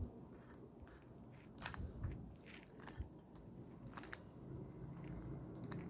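3×3 Rubik's cube turned by hand: faint, irregular plastic clicks as its layers are twisted through a move sequence that inserts a middle-layer edge piece.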